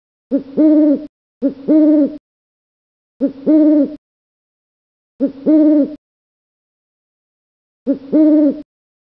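Owl hooting: five two-note hoots, each a short note followed at once by a longer one, repeated at uneven gaps of one to three seconds.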